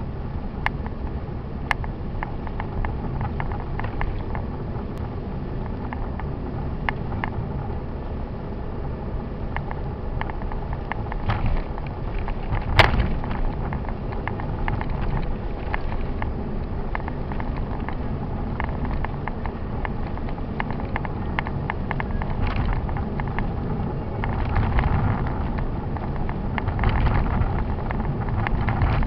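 A car driving on a snow-covered road, heard from inside the cabin: a steady low rumble of engine and tyres, with frequent sharp clicks and one louder knock about halfway through.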